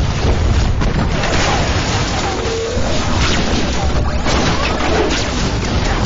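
Loud, dense rumbling with booms and crashes, heavy in the low end.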